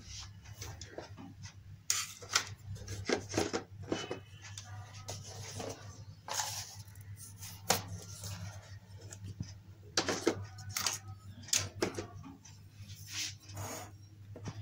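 A metal spoon clinking and tapping against a glass mixing bowl of flour in irregular knocks, over a steady low hum.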